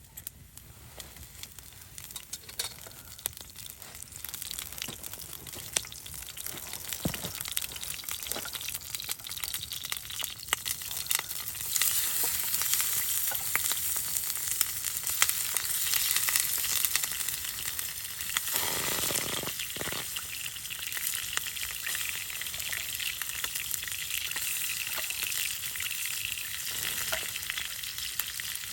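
Steady sizzling hiss full of fine crackling ticks, growing louder about twelve seconds in.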